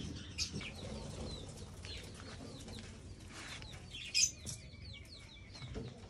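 Birds in an aviary chirping and calling: scattered short, high chirps, with one louder sharp call about four seconds in.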